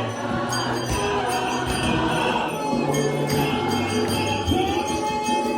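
Gospel choir singing a worship song, with percussion keeping a steady beat.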